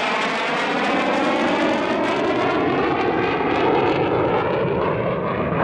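Twin J79 turbojet engines of an F-4EJ Kai Phantom II passing in a flyby: loud jet noise with a sweeping tone that falls slowly in pitch as the jet goes by.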